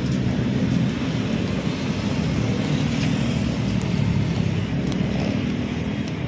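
Steady traffic on a multi-lane city road: cars and motor scooters passing in a continuous low rumble.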